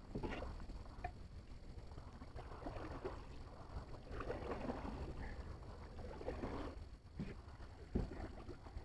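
Irregular water splashing and sloshing, with a few sharp clicks over a steady low rumble.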